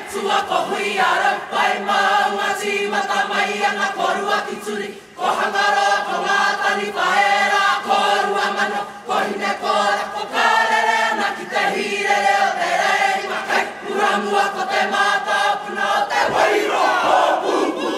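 Kapa haka group singing a Māori song in unison, many voices together, with a short break between phrases about five seconds in.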